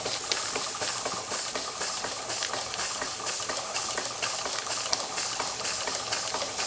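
Stuart model beam engine running on live steam from its gas-fired boiler: a steady hiss with a dense, fast patter of light clicks.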